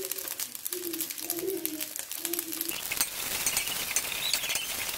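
Rice frying in oil in an aluminium wok, crackling and sizzling, with a metal spatula stirring and scraping it from about three seconds in. A few low, short bird calls sound in the background during the first half.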